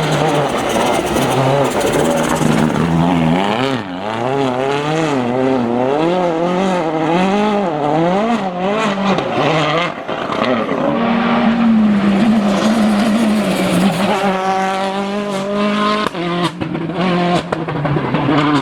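A Citroën DS3 WRC rally car's turbocharged four-cylinder engine at full effort. Its pitch swings rapidly up and down as the driver works the throttle and gears, then holds steadier and climbs again near the end, broken by a few sudden cuts.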